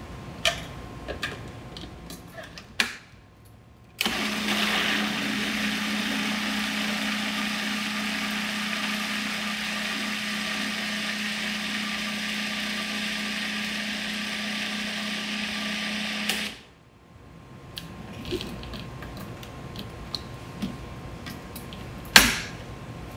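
Countertop food processor running, blending a thick tahini and yogurt paste: the motor starts suddenly about four seconds in, runs steadily with a low hum for about twelve seconds, then stops abruptly. Light clicks and knocks of handling come before and after it.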